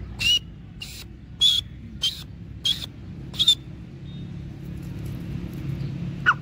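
Grey francolin calling: six loud, sharp calls about every 0.6 s, then one short sliding note near the end, over a steady low rumble.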